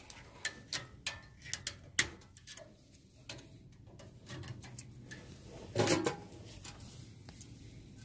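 Needle-nose pliers working a thin wire spring clip off a four-piston brake caliper, a scatter of light metallic clicks and ticks, with one short, louder rasp about six seconds in as the wire is pried free.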